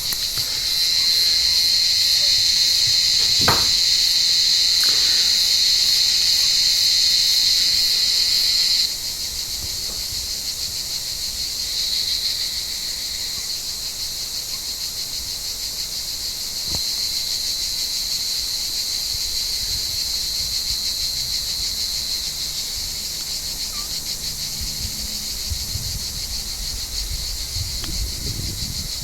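Cicadas buzzing in a steady, high, rapidly pulsing chorus. A louder nearby cicada stops abruptly about nine seconds in, leaving a softer chorus that swells now and then. A single faint knock sounds about three seconds in.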